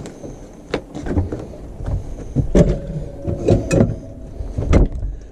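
Irregular knocks, clicks and thuds of cupboard doors and kitchenware being handled in a small motorhome kitchen, with a brief held squeak-like tone about halfway through.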